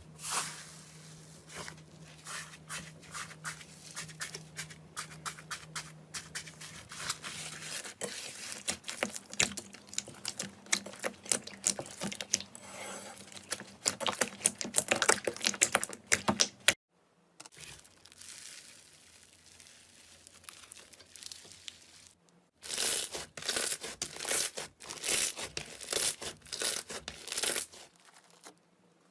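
Slime being squeezed, pressed and stretched, giving dense runs of crackles, pops and crunchy clicks. The sound breaks off abruptly about 17 s in and again about 22 s in, with quieter, sparser crackling between.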